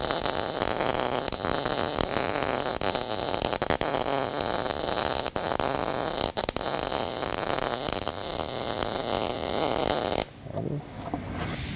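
MIG (gas metal arc) welding arc crackling steadily as the torch weaves side to side, running a bead over a filler rod to bridge a wide gap between steel plates. The arc cuts off suddenly about ten seconds in.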